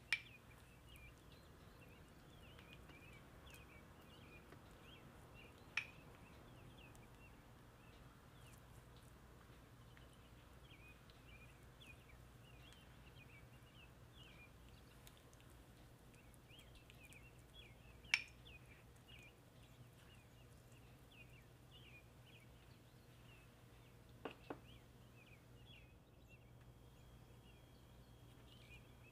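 Near silence with faint high chirping throughout and four sharp taps, the first as a basting brush is dipped into a glass bowl of marinade.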